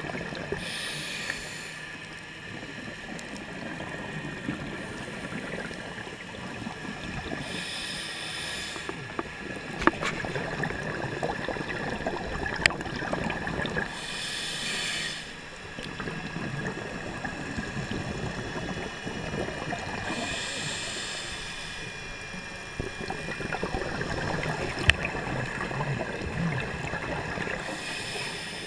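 Scuba regulator exhalations heard underwater: five bursts of bubbles, about one every six or seven seconds, over a steady rushing of water. Three sharp clicks stand out, near ten seconds, thirteen seconds and twenty-five seconds in.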